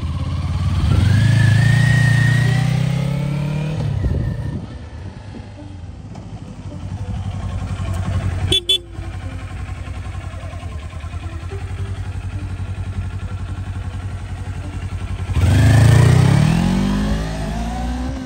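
Sport motorcycle engine accelerating, its pitch climbing, then dropping off as the bike slows. After a sharp click about halfway through, the engine idles steadily, then revs up and pulls away again near the end.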